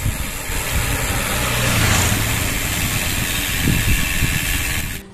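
Wind buffeting the microphone of a camera on a moving bicycle, with road noise from the ride: a steady rushing noise with gusty low rumble. It cuts off suddenly near the end.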